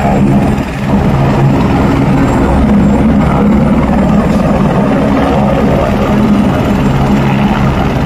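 Light helicopter's turbine and main rotor running on the ground at idle, loud and steady.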